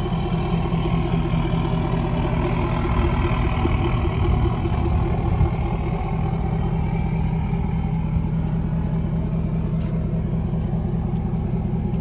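An engine running steadily with an even low throb.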